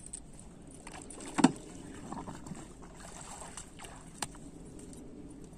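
Water splashing and sloshing as a man wades through shallow water and mud at a river's edge with a plastic jug. The loudest splash comes about a second and a half in, and a sharp knock follows a little after four seconds.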